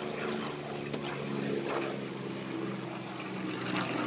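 Aerobatic stunt plane's engine droning steadily as the smoke-trailing plane pulls up into a vertical climb.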